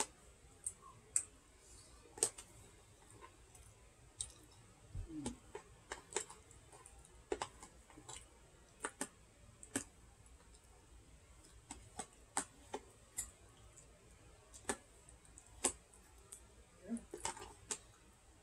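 Faint, irregular clicks of a fork or spoon tapping and scraping against a dish while someone eats, about one a second, with a brief low sliding sound about five seconds in.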